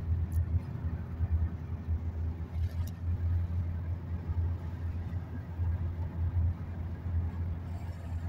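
Car driving, a low, steady rumble of engine and road noise heard from inside the moving car.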